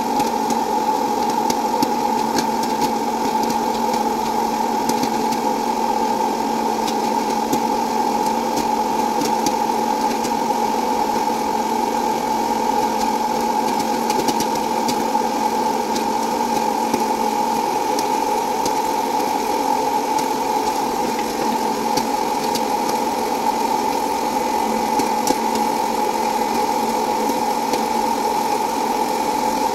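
Hot-air electric popcorn popper running: its fan motor gives a loud, steady whine, with scattered sharp pops of kernels bursting.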